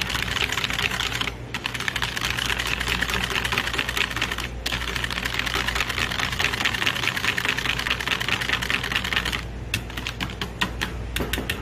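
Wire whisk beating yogurt in a plastic bowl: rapid, continuous clicking of the wires against the bowl, with two brief pauses, turning to slower, scattered clicks about nine and a half seconds in.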